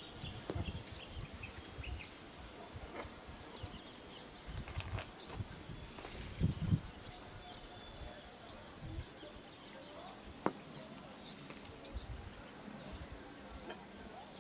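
Open-air ambience dominated by a steady high-pitched insect drone, with gusts of wind buffeting the microphone, a few faint chirps, and a single sharp knock about ten seconds in.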